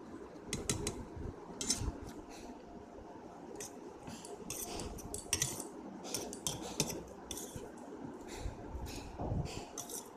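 Metal fork scraping and clinking against a metal plate while gathering noodles, in many short, irregular strokes.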